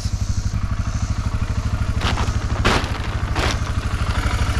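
An engine running steadily with an even low throb. Three short gritty noises come in the middle, a little over half a second apart.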